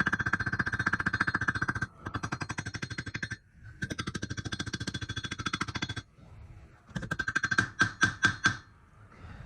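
Rivets being set into a steel breastplate with rapid hammer strikes that make the plate ring. The strikes come in three fast, steady bursts, then about six slower, harder separate blows about seven seconds in.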